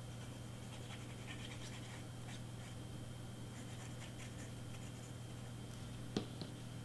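Faint scratching and rustling as small cardstock pieces and a plastic glue bottle are handled, over a steady low hum, with one sharp tap about six seconds in.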